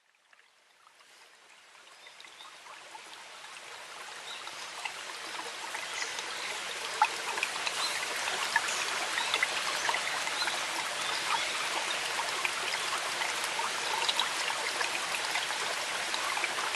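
Rushing water with many small droplet-like ticks, fading in from silence over the first several seconds, then holding steady.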